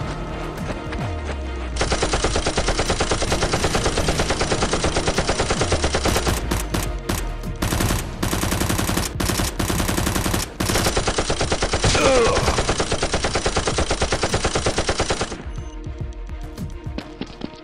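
Rapid automatic gunfire sound effects: a long stretch of fast continuous bursts starting about two seconds in and breaking off near the end, with scattered single shots before and after. A brief falling whistle cuts through about twelve seconds in.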